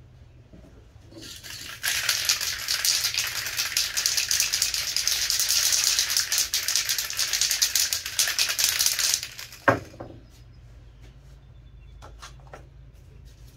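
Handheld torch flame hissing steadily for about seven seconds, then cutting off, followed by a single sharp click.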